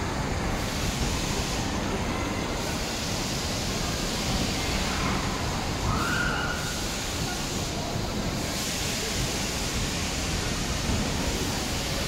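Spinning jet-plane funfair ride running, heard as a steady, even rushing noise.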